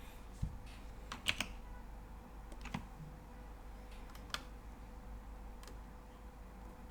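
Scattered clicks of computer keyboard keys at a desk, a few at a time with gaps between, over a faint steady hum.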